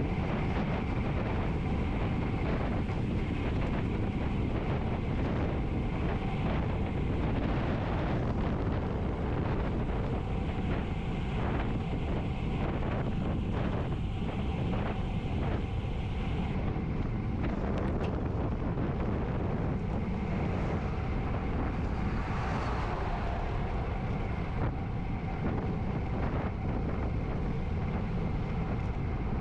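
Wind buffeting a GoPro HERO9's microphone while riding a road bike, a steady low rumble.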